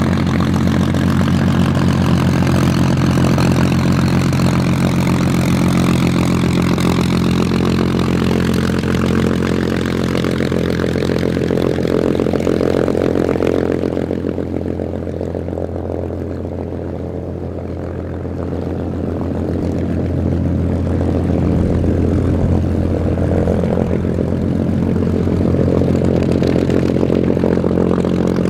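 Supermarine Spitfire Mk.XVIIIe's Rolls-Royce Griffon V12 running at low power while the fighter taxis, a steady low propeller-engine drone. It fades a little in the middle as the aircraft turns away, then grows louder again.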